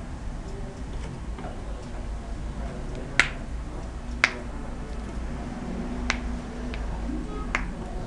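Two sharp clicks or taps about a second apart, then a couple of fainter ones, over a low steady hum.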